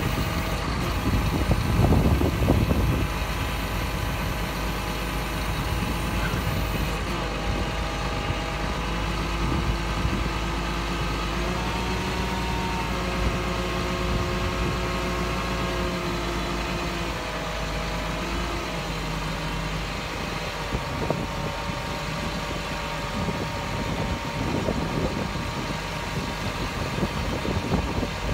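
Scania 124G hooklift truck's straight-six diesel running while its hydraulic hook arm is worked, with a surge about two seconds in and a whine from the hydraulics in the middle that shifts in pitch as the arm moves.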